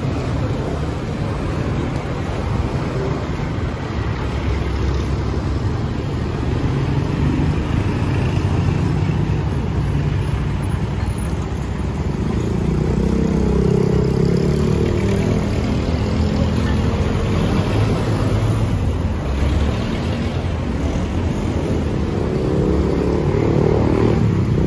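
Busy road traffic: cars, motorcycles and a jeepney passing, with a steady low engine rumble that grows a little louder about halfway through.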